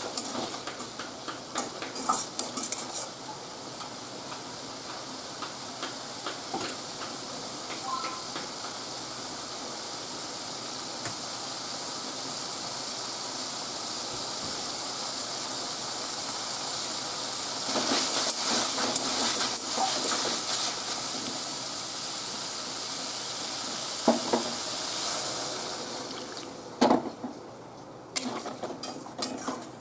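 Potatoes frying in spiced masala in a metal kadai: a steady sizzle, with a spatula scraping and knocking against the pan now and then. Near the end water goes in, the sizzle dies down, and the spatula knocks against the pan a few more times.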